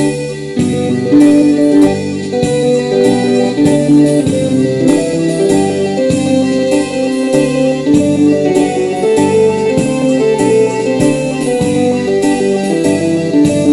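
Instrumental music with a steady beat: a melody in held notes over a regular, even accompaniment.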